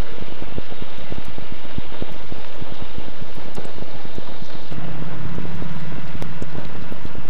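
Loud, steady crackling noise with many small clicks. A low steady hum joins about five seconds in.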